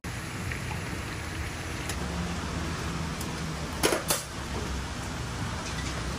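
Steady low rumble of background noise at a food stall, with two sharp clinks of metal utensils against bowls about four seconds in, as portions are served.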